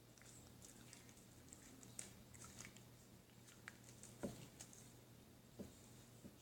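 Faint soft squishing and small sticky clicks of slime being handled, a few slightly louder pops scattered through, over a low steady hum.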